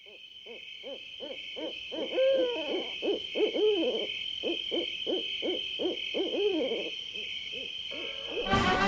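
Owls hooting over and over in short rising-and-falling calls, a few each second, over a steady high trill. Brass music comes in just before the end.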